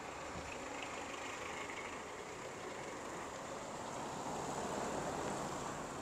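An SUV passing close by in the oncoming lane: its tyre and engine noise swells to a peak about five seconds in and then fades, over a steady background hiss.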